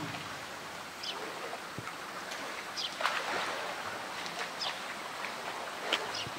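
Pool water splashing and sloshing as a polar bear swims and wrestles a floating blue plastic tank, with a louder splash about three seconds in.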